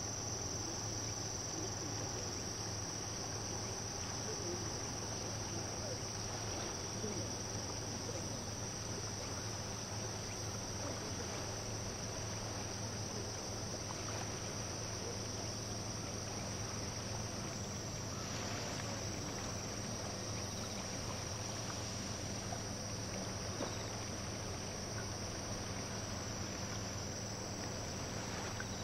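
Steady, high-pitched insect chorus, a continuous shrill trill that keeps on without a break, over a low steady hum.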